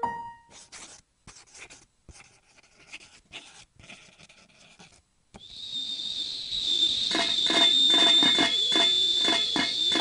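Kettle whistling: a steady high whistle comes in about halfway through, swells over a couple of seconds, then holds, with a rhythmic pulsing sound joining it about two seconds later. Before it there are only faint scattered crackles.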